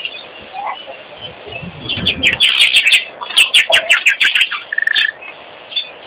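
Wattled starlings calling: a fast run of high, scratchy chirps starting about two seconds in and lasting over two seconds, followed by a short steady whistled note.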